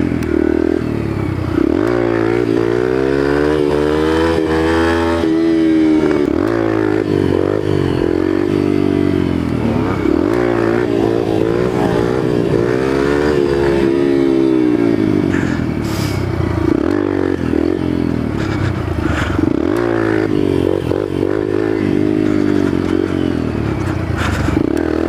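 Yamaha TTR125 dirt bike's single-cylinder four-stroke engine heard from on the bike while trail riding, its pitch rising and falling again and again as the throttle is opened and eased off through the gears. A few sharp rattles come in the second half.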